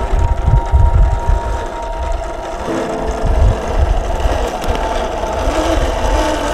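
Scale RC crawler truck's electric motor and geared drivetrain whining steadily as it crawls slowly over rocks, with uneven low knocks from the chassis and tyres.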